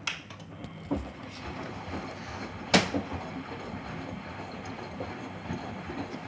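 Miele washing machine running with a steady rumble, a knock about a second in and a loud thump a little under three seconds in, as the drum swings hard; the owner takes the swinging for worn-out shock absorbers.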